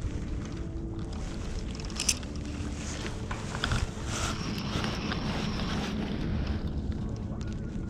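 Outdoor wind buffeting the microphone as a steady low rumble, with a few sharp faint clicks, two of them about 2 and 3.7 seconds in.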